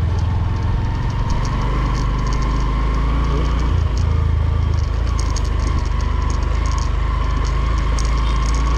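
A vehicle engine running steadily with a deep, even drone, with scattered light rattling clicks over it.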